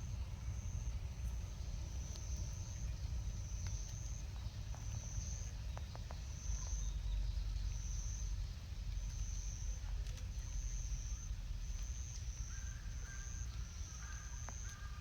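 Outdoor garden ambience: a high, short chirping call repeats about once a second over a steady low rumble. In the last few seconds a second, lower call joins in.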